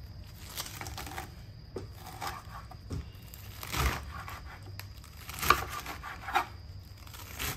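Kitchen knife chopping fresh spinach on a wooden chopping board: irregular cuts about one a second, each a short knock of the blade against the board with the rustle of leaves being cut. The loudest strokes come a little past halfway.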